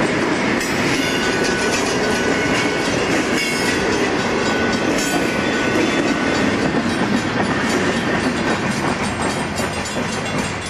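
Freight cars rolling past at close range, their steel wheels clicking rhythmically over rail joints with a continuous rumble and rattle. A faint steady squeal sounds from about a second in until about five seconds.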